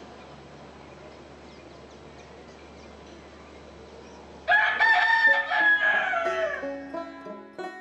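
A rooster crows once about halfway through: one long call that falls in pitch at its end, over a steady faint hiss. Plucked banjo notes start near the end.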